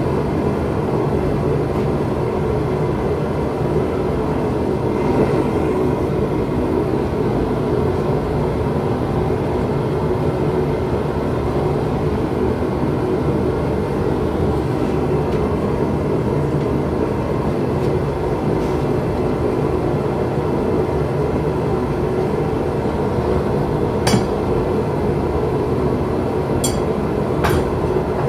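Propane forge burner running with a steady rushing noise. Near the end come three short, sharp clicks.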